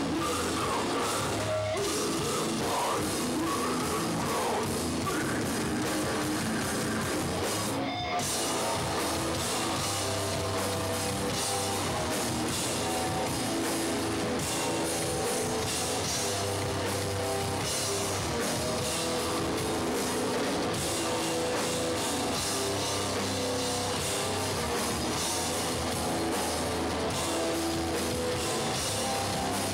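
Hardcore punk band playing live: distorted electric guitars and drums, loud and dense throughout, with a momentary dropout about eight seconds in.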